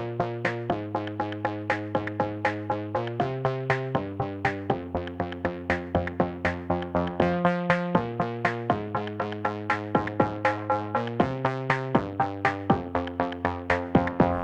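Background music: electronic track with a steady beat and sustained synthesizer chords that change every second or so.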